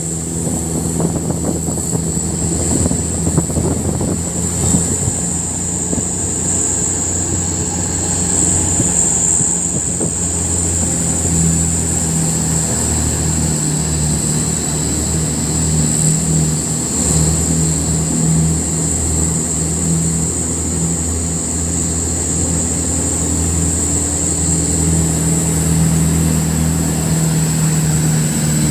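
Diesel truck engine running steadily, its low note shifting a little now and then, with a constant high-pitched whine over it.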